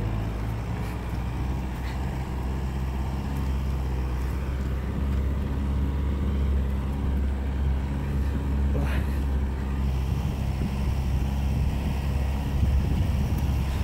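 Off-road vehicle's engine running steadily under load with a low drone, heard from inside the cab while climbing a steep slope.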